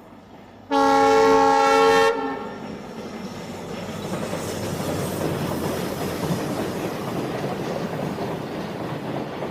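Locomotive horn sounding one blast of about a second and a half, about a second in; then the rumble and wheel clatter of a freight train on the rails grows louder and carries on.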